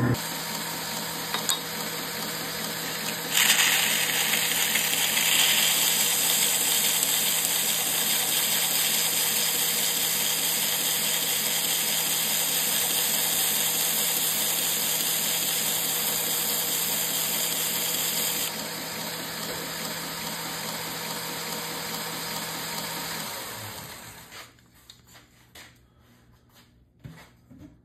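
Bench belt sander running, and from about three seconds in grinding the edge of a marbled carbon fibre knife scale pressed to the belt, a steady hissing grind for about fifteen seconds. The motor then winds down and stops near the end, leaving a few light clicks.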